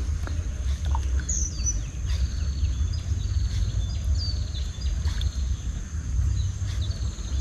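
Waterside outdoor ambience: a bird gives a run of short, falling chirps in the first half, over a steady high insect drone and a low rumble.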